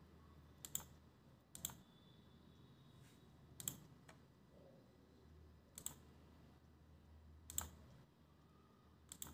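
Faint computer mouse button clicks, about six spaced a second or two apart, some in quick pairs, as line points are placed in a CAD sketch. A faint steady low hum lies underneath.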